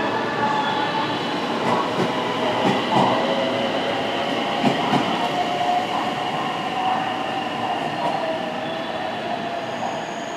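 289-series electric multiple unit pulling out of a station: wheels clicking over rail joints under a running rumble, with a steady whine from the train, the sound easing slightly toward the end.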